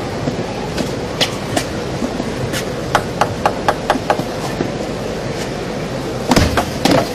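Celluloid table tennis ball bounced repeatedly before a serve, a run of quick light taps about five a second, over a steady murmur of the arena crowd. Near the end the serve and rally begin, with sharp hits of the ball on bats and table and the background growing louder.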